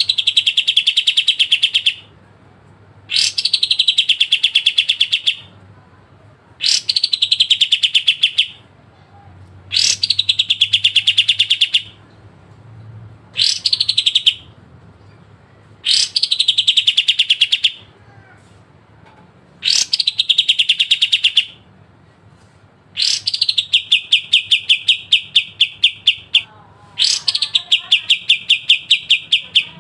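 Kapas tembak (white-shouldered triller) singing its sharp trilled phrases over and over: each phrase opens with a quick high downward sweep and runs into a fast, even trill of repeated notes, about nine phrases with short pauses between, the last ones longer.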